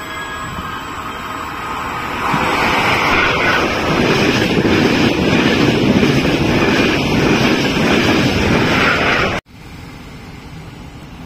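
Intercity-type passenger train passing close by at speed: a loud, steady rush of wheels on rails that builds about two seconds in. It cuts off abruptly near the end, leaving a quieter steady background noise.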